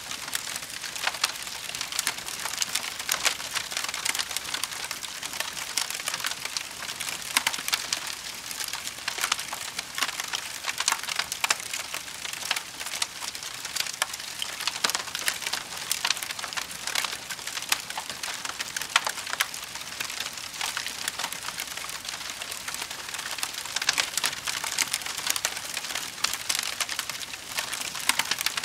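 Campfire burning, its wood crackling and popping in a dense, continuous stream of sharp pops over a steady hiss. The sound cuts in abruptly at the very start.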